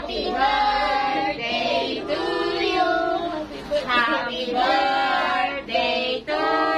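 A group of women and children singing a birthday song together, with long held notes.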